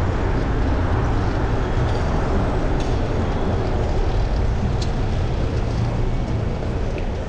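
Steady wind rush and road noise on a chest-mounted GoPro while riding a fixed-gear bicycle, heaviest in the low rumble. A couple of faint clicks sound about three and five seconds in.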